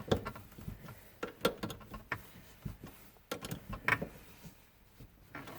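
Irregular light clicks and knocks of parts being handled and fitted back in place around a car battery.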